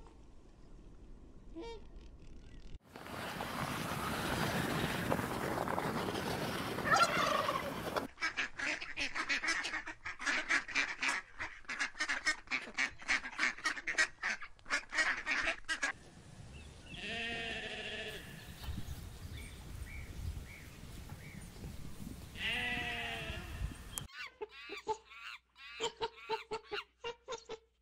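A run of waterfowl calls: swans, then a mallard duck calling in fast repeated strokes, then honk-like calls. Near the end come short high rising chirps from macaques.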